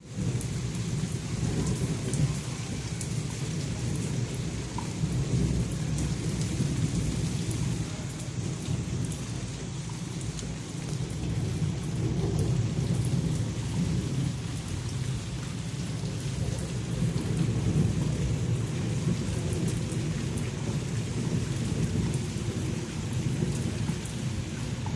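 Heavy rain falling steadily, with single drops ticking over a constant low rumble.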